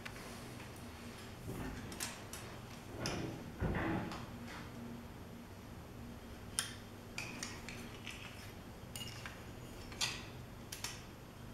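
Metal Meccano strips and plates clinking and rattling as the model airplane is handled, with scattered sharp clicks, the clearest about six and a half and ten seconds in, over a faint steady hum.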